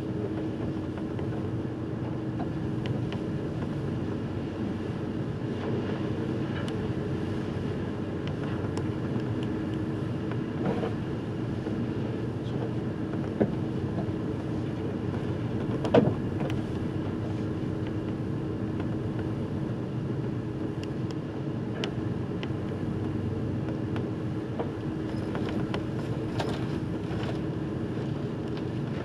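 Ferry under way: a steady low drone of the ship's engines with a hum, mixed with wind and sea noise. A few brief knocks; the loudest comes just past halfway.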